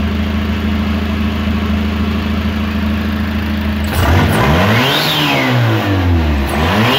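Turbocharged Toyota 3RZ 2.7-litre four-cylinder engine idling steadily, then revved twice starting about four seconds in. Each rev climbs and falls back, with a whistle rising and dropping along with it.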